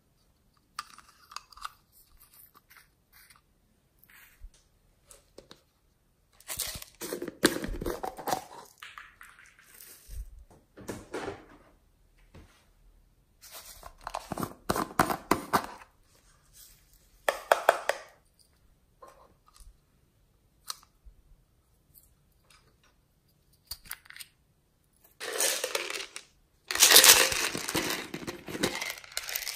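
Small plastic slime tubs being handled and opened by hand, their lids worked off: several bursts of crackling, rustling plastic with small clicks between, the longest and loudest near the end.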